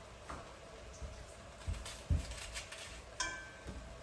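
Cookware and utensils being handled: two dull knocks followed by a short ringing metallic clink about three seconds in.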